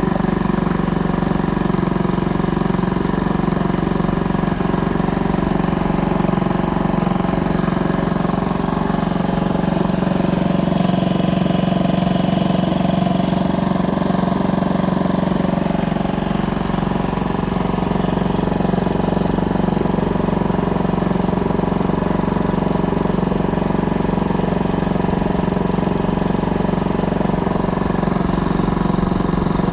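Honda BF2DH 2 hp outboard, a small air-cooled single-cylinder four-stroke, running steadily at an even speed.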